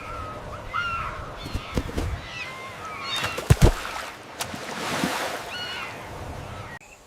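Birds calling in a string of short calls that overlap. There are sharp knocks about two seconds and three and a half seconds in.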